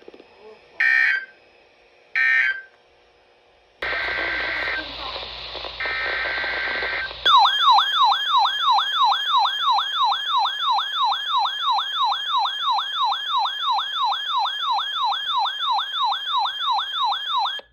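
Emergency Alert System digital data bursts: two short screeching end-of-message bursts, then, over radio hiss starting about four seconds in, two longer header bursts. About seven seconds in, a loud siren-like attention tone starts, warbling up and down about three times a second until it cuts off.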